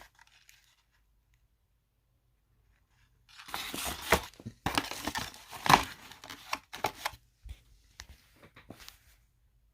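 Toy packaging being handled, plastic and cardboard rustling and crinkling with sharp clicks. It starts about three seconds in, after a near-silent pause, and comes in irregular spurts.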